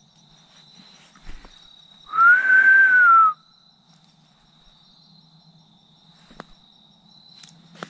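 One loud whistled note lasting just over a second, rising slightly and then falling away, against a faint steady trill of insects.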